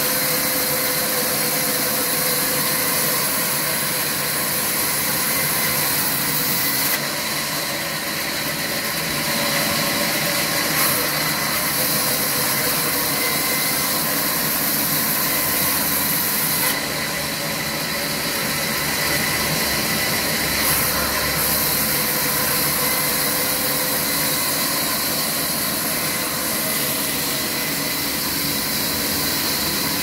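Sawmill saw machinery running steadily while cutting wet logs, a constant mechanical drone with a high hiss. The hiss eases for a few seconds about seven seconds in and again about seventeen seconds in.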